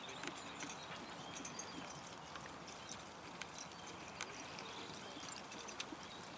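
Faint hoofbeats of a single horse trotting on grass while pulling a four-wheeled carriage, with scattered light clicks over a quiet background hiss.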